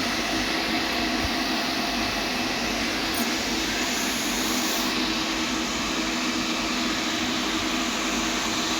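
Steady hiss and hum of welding work on stainless steel, with an even level and no breaks.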